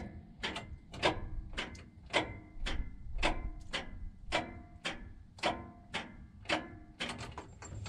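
Starter on a Hydrema 912 dump truck clicking over and over, about two sharp clicks a second, without cranking the engine. This is the intermittent no-crank fault that the owner is replacing the already-rebuilt starter to cure.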